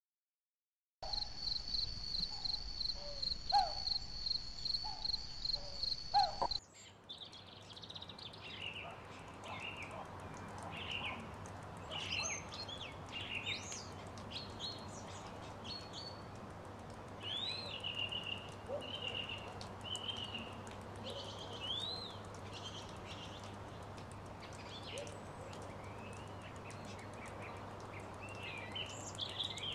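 Insects trilling in a fast, even pulse, which cuts off abruptly after about six seconds into a dawn chorus of many birds chirping and calling, with a faint low steady hum beneath.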